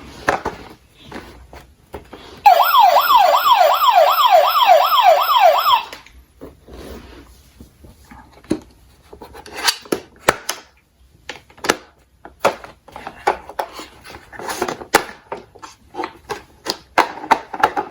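A toy emergency vehicle's electronic siren yelps for about three seconds, its pitch sweeping up and down about three times a second, then cuts off suddenly. After it come scattered light clicks and clatters of toy cars being handled and rolled.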